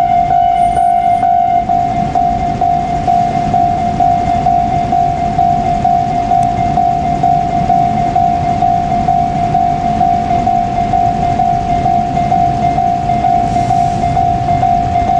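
Japanese level-crossing warning bell ringing on without a break as one steady repeating tone, over the low rumble of a passing electric train that grows near the end.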